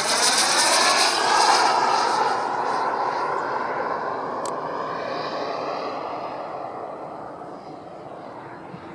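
Radio-controlled model jet flying past, its engine pitch dropping as it goes by, then fading steadily as it flies away.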